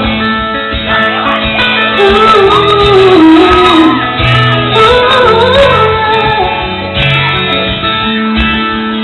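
Live pop-rock band playing, guitar-led, with a sung vocal line holding and bending long notes without clear words.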